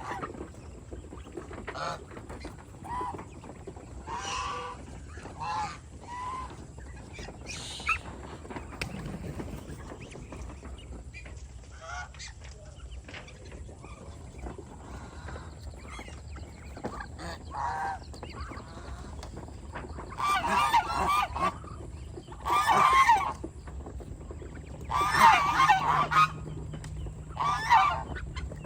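Domestic geese honking, scattered calls at first and then louder bouts of overlapping honks in the last several seconds.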